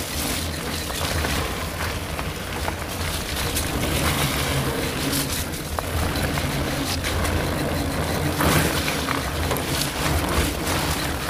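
Steady rumble of wind and motion noise from riding fast along a wet forest trail, with scattered knocks and rattles from bumps in the track.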